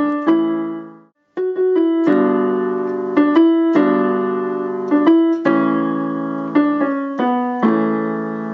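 Piano playing a song's melody over held chords, stopping briefly about a second in and then carrying on.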